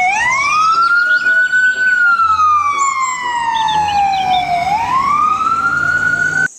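Ambulance siren wailing: the pitch rises for about two seconds, falls slowly for nearly three, then rises again before cutting off abruptly near the end.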